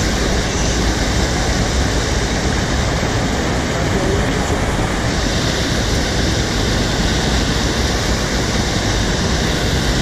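Steady, loud rush of a small river cascade tumbling white over boulders, close to the microphone.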